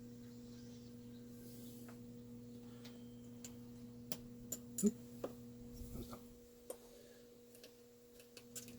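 Scattered light clicks and taps of small chainsaw parts being handled during reassembly, one near the middle with a brief metallic ring, over a steady electrical hum.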